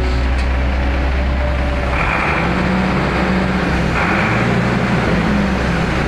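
Caterpillar M318D wheeled excavator's diesel engine running under load as the hydraulics work the arm, its pitch rising and sagging, with a brief hiss twice, about 2 and 4 seconds in.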